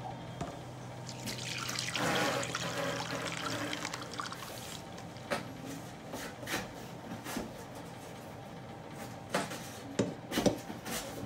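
Thin chickpea-flour karantika batter pouring from a bowl into a glass baking dish: a steady liquid pour, strongest about two seconds in, then tapering off. A few light knocks come in the second half.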